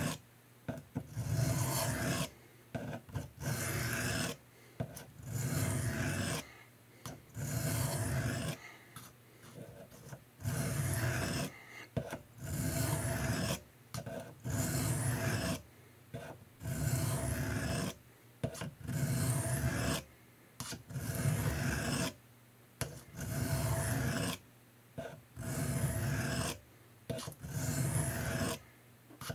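German army knife blade being drawn across a 300-grit diamond sharpening plate: a gritty, rasping scrape repeated in steady strokes about once a second.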